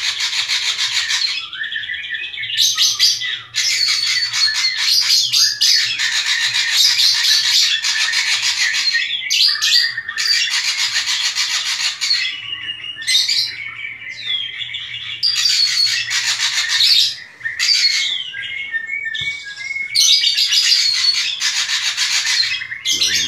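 Black drongo singing persistently: long runs of rapid, harsh, scratchy notes with a few short clear whistles mixed in, broken by brief pauses.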